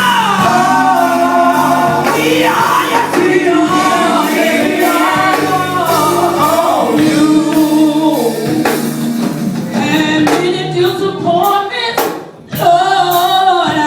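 Music with singing in a choir or gospel style, sustained vocal lines over held low notes; a regular beat comes in about ten seconds in, with a brief drop-out shortly before the end.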